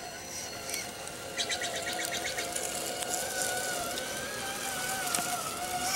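RC4WD Trail Finder 2 scale crawler's electric motor and geared drivetrain whining as the truck crawls over rocks, the pitch wavering slightly with throttle and load. A rapid run of clicks comes about a second and a half in.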